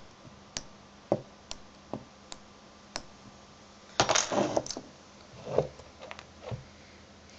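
Sharp metallic clicks as a thin steel rod snaps against the toothed, laminated rotor of a stepper motor, which is held by neodymium magnets. About six single clicks come in the first three seconds, then a short clatter of handling about four seconds in and a few more knocks near the end.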